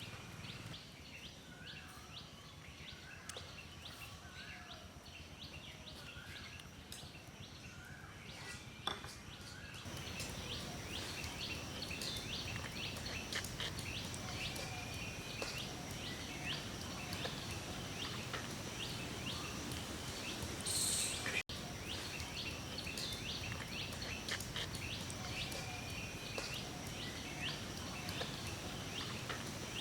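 Birds chirping and calling repeatedly over a steady outdoor background hiss, which gets louder about ten seconds in.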